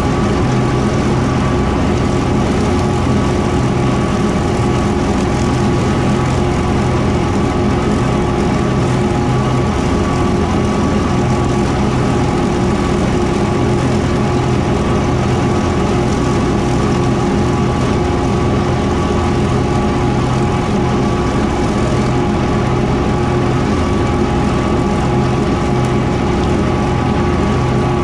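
Kubota M4-071D tractor's diesel engine running steadily at working speed while driving a Woods BW12 bat wing mower.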